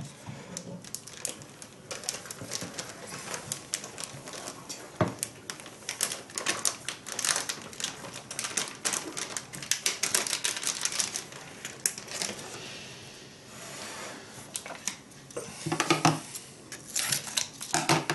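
Plastic bag of dry bread mix crinkling and rustling as the mix is shaken out of it into a bread machine pan, with one sharp tap about five seconds in.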